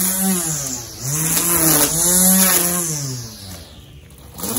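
Corded electric string trimmer cutting grass and weeds, its motor whining. The motor's pitch sags and picks up again as the speed changes, and it runs down twice, about a second in and near the end, before spinning back up.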